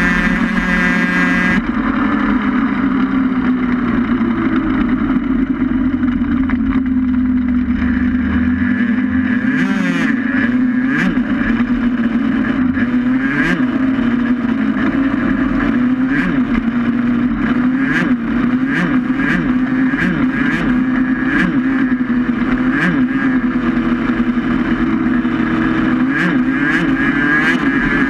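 Racing vehicle travelling along a road at steady speed, heard on board: a steady drone with a slight dip in the first few seconds, then short clicks or rattles repeating about every 0.7 s from about a third of the way in.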